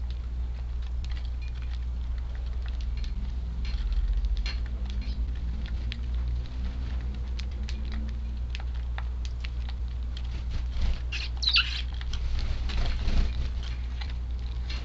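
Strong wind rumbling on the microphone, with many light, quick taps and ticks of sparrows pecking and hopping at the feed, and a short high chirp about two-thirds of the way in.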